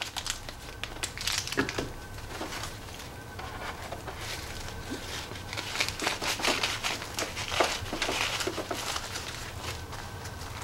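Irregular fabric rustling and small handling clicks as a miniature cloth jacket is worked onto a 1/6 scale action figure, over a low steady hum.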